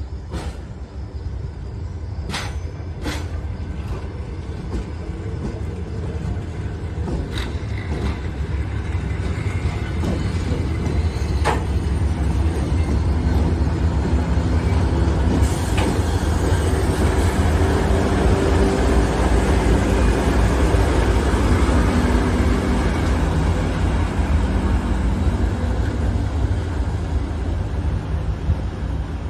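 Train running on the rails, a low rumble that grows louder to a peak a little past the middle and then eases slightly. A few sharp clicks come in the first dozen seconds.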